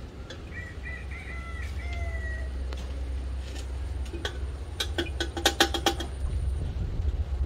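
Chickens calling: a rooster crows once, a drawn-out call that falls slightly at its end, about half a second in. Around five seconds in comes a quick run of about eight sharp squawks.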